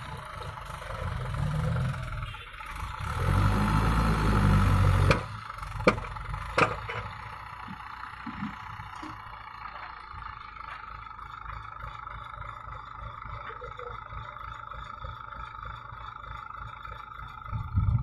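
Mahindra tractor's diesel engine running beside a loaded soil trolley, with heavy low swells of rumble in the first five seconds. Two sharp knocks come about six seconds in, after which the engine runs steadily and more quietly.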